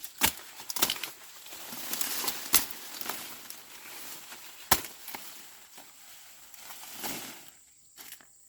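Dry corn stalks and husks rustling, broken by a few sharp snaps as ears are broken off during harvesting.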